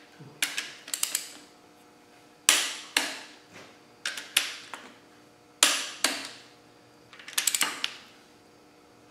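Click-type torque wrench clicking as it breaks over at the set torque of 79 N·m on the engine's bearing cap bolts, each click the sign that a bolt has reached torque. Sharp clicks come mostly in pairs, five groups in all, about every one and a half seconds, with a quick run of clicks near the end.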